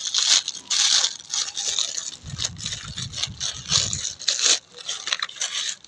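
Thin clear plastic bag crinkling and rustling in irregular crackles as a spring hand gripper is worked out of it by hand.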